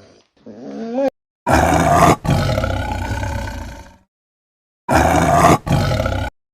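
Big cat roaring: two loud, rough roars, each about two seconds long with a brief break partway through, a second of silence between them. Just before them, a short rising whine ends about a second in.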